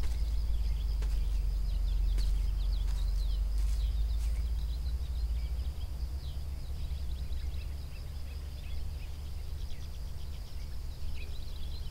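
Outdoor ambience: many small bird chirps over a low wind rumble, with a steady high hum above them. There are a few faint clicks in the first seconds, and the low rumble eases about halfway through.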